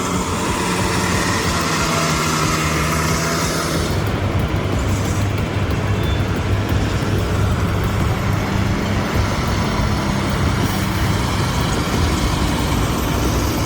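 Heavy truck's diesel engine running with a steady low drone. About four seconds in the sound changes: the hiss above thins out and a deeper hum takes over.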